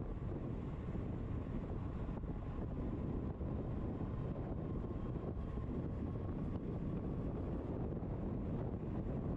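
Steady wind rush buffeting the microphone while riding an electric bike, with a faint steady whine underneath.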